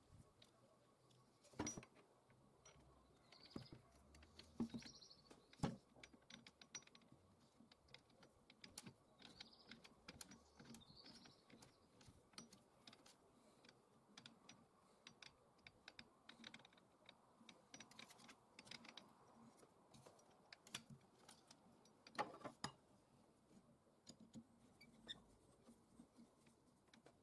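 Faint, scattered clicks and taps of small metal parts being handled: a steel hex nut and nylon trimmer line being fitted to an angle grinder's spindle. There are a few louder knocks, about two seconds in, near six seconds, and once more some twenty-two seconds in.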